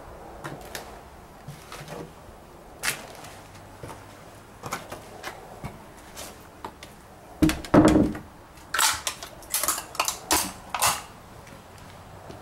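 Footsteps and knocks of someone climbing a debris-strewn staircase: scattered sharp clicks, one heavy thump a little past halfway, then a quick run of sharp clicks near the end.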